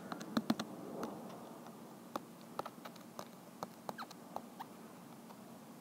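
Handwriting on an iPad touchscreen: faint, irregular taps and scratches as the tip touches and drags across the glass, a few strokes a second.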